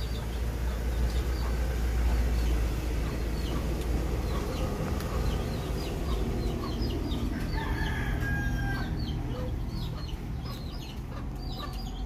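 Chickens calling: short high calls repeating throughout, and a rooster crowing once for over a second, about seven and a half seconds in, over a low steady rumble.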